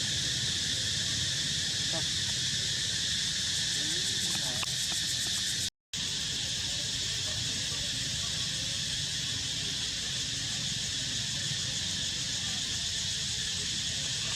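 Steady insect chorus, a continuous high shrill drone. The sound cuts out briefly about six seconds in.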